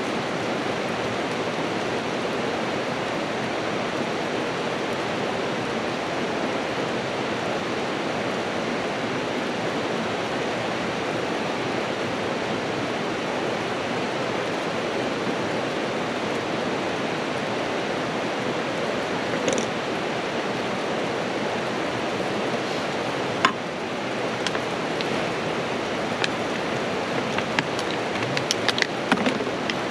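Steady rushing of a river, with a sharp click about two-thirds of the way through and a run of light clicks and clatters near the end.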